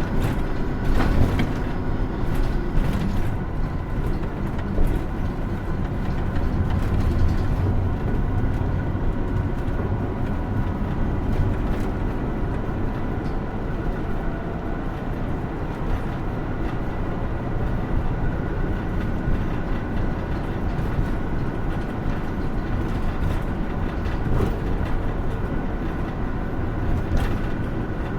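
Hino Rainbow II diesel route bus heard from inside the cabin while driving: steady engine and road noise, with a few light clicks and rattles.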